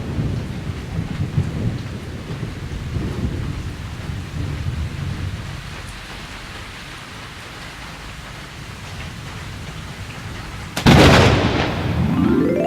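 Steady rain with low rolling thunder, fading a little mid-way. About eleven seconds in, a sudden loud crash like a thunderclap, followed by a rising sweep.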